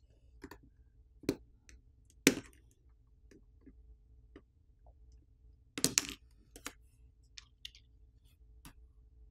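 Small sharp clicks and light taps as a plastic pry tool pops the camera flex connectors off a smartphone's motherboard and the camera module is handled. The clicks are separate, the loudest about two seconds in and a quick cluster about six seconds in.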